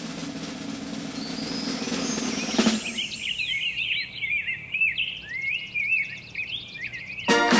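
A drum roll swells and ends on a single hit about three seconds in. Then a small bird chirps and twitters in quick, rapidly rising and falling notes until music comes in near the end.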